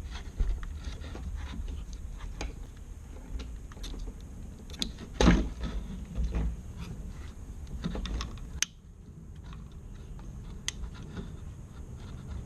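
Scattered clicks, light knocks and rattles of hand tools and metal parts being handled during fuel pump work, with one louder knock about five seconds in, over a low rumble that drops away about two-thirds of the way through.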